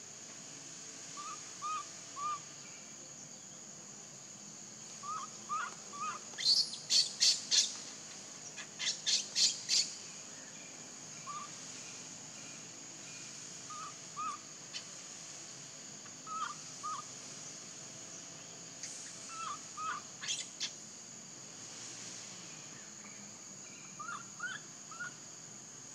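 Wild birds calling: short chirps in twos and threes, and twice in close succession a loud run of rapid calls. Under them runs a steady high insect drone.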